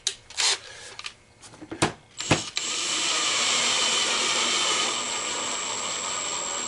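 Cordless drill driving a screw into the back half of a coin hopper's case. A few handling clicks come first, then about two seconds in the motor starts and runs steadily with a constant high whine for about five seconds.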